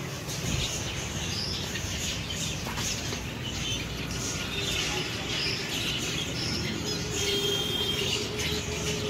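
Small finches chirping in many short, high calls over a steady background hum, with a long held low tone in the second half.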